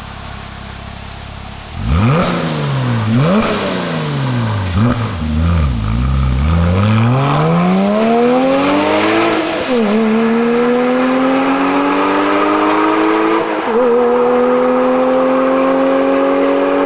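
2007 Porsche Cayman S flat-six through an AWE Tuning stainless catback exhaust, idling and then revved up and down several times. It then accelerates away in one long rising pull, and two upshifts follow as the note settles into a steadier, slowly climbing drone.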